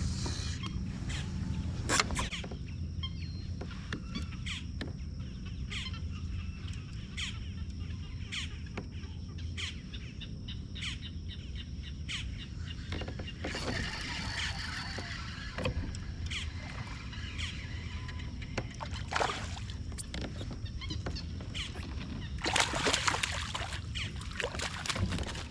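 Small clicks and handling knocks of fishing tackle on a kayak, with bursts of water splashing and sloshing, over a steady low rumble.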